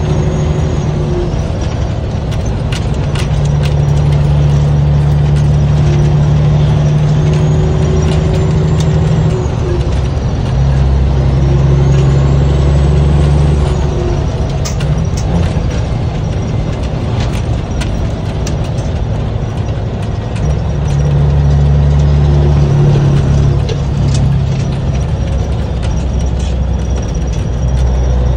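Caterpillar 3406B mechanical diesel pulling a semi truck, heard from inside the cab, its engine note building in several stretches. Over each pull, the whistle of its Borg Warner 174259 turbocharger climbs in pitch, then drops away between pulls. Scattered sharp clicks run through it.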